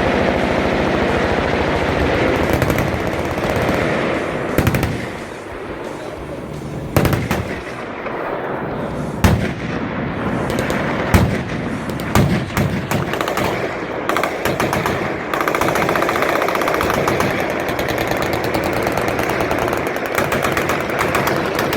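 Several machine guns firing at once: a continuous rattle of rapid automatic fire, with a few louder single shots standing out partway through.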